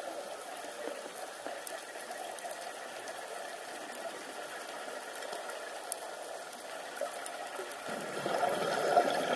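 Underwater ambience on a scuba dive: a steady hiss with a few faint clicks, then about eight seconds in a louder rush of bubbling as the diver breathes out through the regulator.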